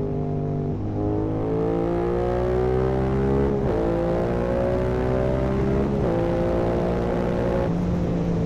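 Yamaha R7's 689 cc parallel-twin engine, breathing through an Akrapovic full-carbon racing exhaust with the dB killer out, pulling under acceleration. Its pitch climbs slowly and breaks three times as it shifts up, dropping back lower each time.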